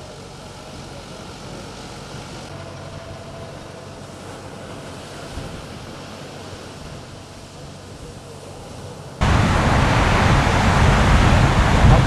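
A tractor's engine running steadily, heard as a low hum under a faint background hiss. About nine seconds in, the sound cuts abruptly to loud wind and surf noise.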